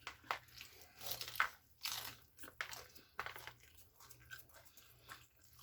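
Biting and chewing crispy fried chicken: a string of irregular crunches and crackles.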